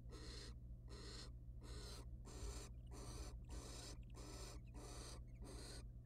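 Barn owl giving a steady series of hissing snore calls, each about half a second long, nearly two a second, over a low steady electrical hum.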